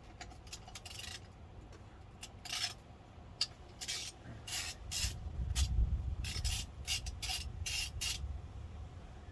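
A hand ratchet worked in a string of short, irregular rasping strokes on the aluminum LM4 5.3 V8 as parts come off for teardown and oil drain. A low rumble of handling noise comes partway through.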